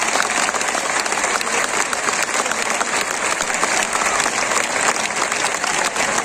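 A large crowd of thousands applauding: dense, even clapping that holds steady throughout.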